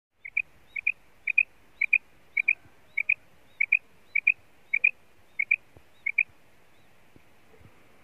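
Female common quail (batair) calling: a quick two-note call, repeated eleven times about every half second, stopping about six seconds in.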